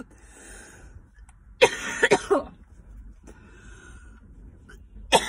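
A woman coughing after a hit of cannabis smoke from a bubbler pipe: a burst of several rough coughs about one and a half seconds in and another starting near the end, with breathy exhales between them.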